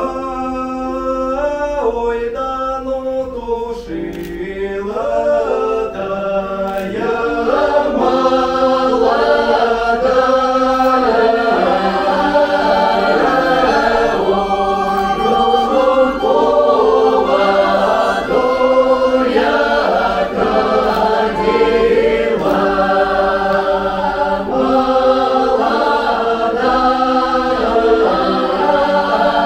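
Mixed ensemble of men's and women's voices singing a Don Cossack folk song in several parts, growing louder over the first few seconds and then holding full.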